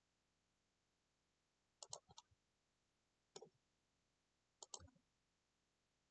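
Faint clicks of a computer mouse and keyboard, in three short groups about a second and a half apart, with near silence between them.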